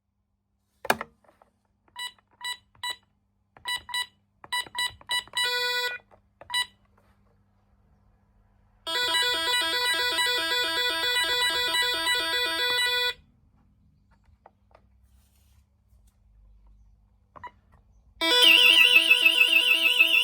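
Gardtec 370 intruder alarm system sounding. A click about a second in is followed by irregular groups of short electronic beeps, like keys pressed on the alarm keypad, then a steady electronic tone lasting about four seconds. Near the end a loud warbling alarm tone starts through the speaker.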